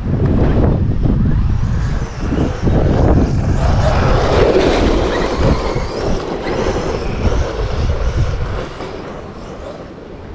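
Arrma Outcast 8S EXB RC truck driving through brush and over rough dirt: its electric motor and drivetrain run with a rattling, grinding clatter of tyres and chassis, over wind buffeting the microphone. It grows quieter near the end.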